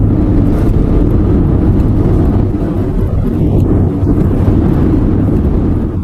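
Citroën C3 driving, heard from inside the cabin: a loud, steady rumble of engine and road noise.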